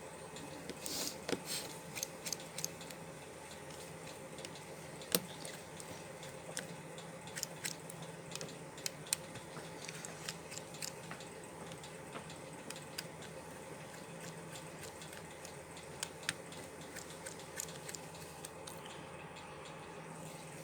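Sparse small clicks and taps of a precision screwdriver and metal tools against a smartphone's frame as its Phillips screws are removed, over a steady low hum.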